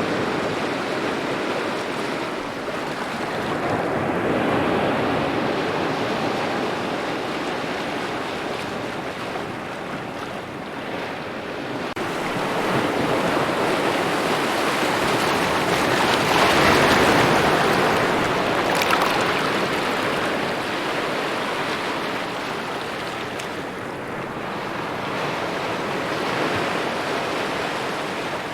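Gentle waves lapping at a shore in a steady wash that slowly swells and eases, with the largest swell about two-thirds of the way through.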